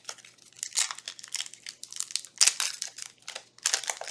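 Foil trading-card booster pack wrapper crinkling and crackling as it is handled, in irregular bursts.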